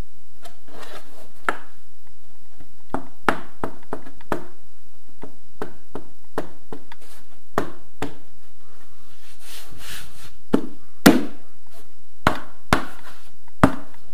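Wall panel being handled and pressed into place on its mounting frame: a run of sharp knocks and clicks, the loudest about eleven seconds in, with a brief scraping rustle just before it.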